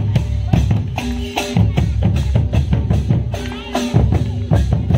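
Dance music with a quick drum beat under held instrument notes, with voices over it.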